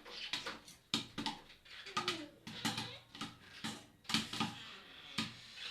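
Popcorn kernels popping inside a covered sufuria cooking pot: sharp, irregular pops about one or two a second, the thinning late stage of popping when the batch is nearly done.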